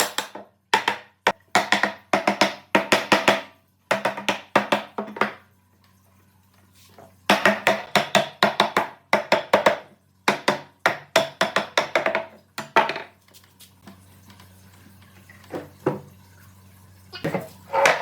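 Rapid hammer blows on wood, about four or five strokes a second, in two long runs with a short pause between, then a few scattered knocks near the end.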